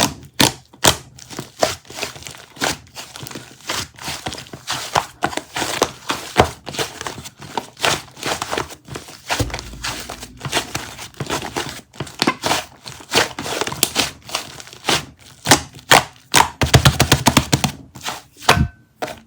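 Crinkling and rustling of something being handled, with many quick taps and light knocks in an irregular rhythm, growing busier near the end.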